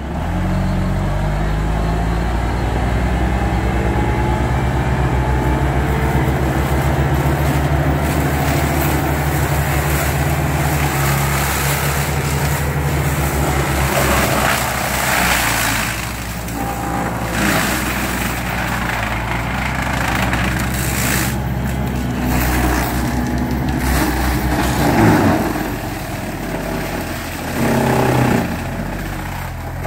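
Bobcat T300 compact track loader's diesel engine running steadily under load while its Timber Axe forestry mulcher head spins. Several crunching, shredding surges break through in the second half as the mulcher chews into brush and saplings, the heaviest about 25 seconds in.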